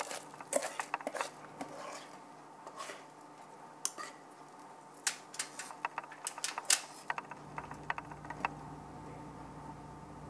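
A spatula scraping chocolate cake batter out of a stainless steel pot: scattered clicks and scrapes of the spatula against the metal pot, over a faint steady hum that grows a little louder about seven seconds in.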